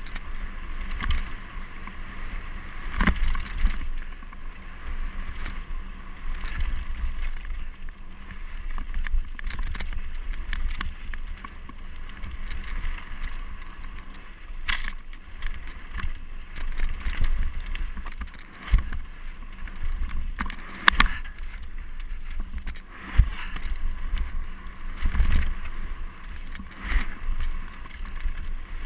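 Mountain bike riding fast down a rough dirt-and-stone singletrack: tyres rolling over gravel and the bike rattling, with frequent sharp knocks as it hits rocks and bumps. Low wind rumble on the camera's microphone runs underneath.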